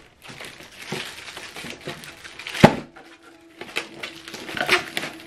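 Plastic wrapping crinkling and rustling as a soundbar in its plastic sleeve is handled over its foam packaging, with one sharp knock about two and a half seconds in.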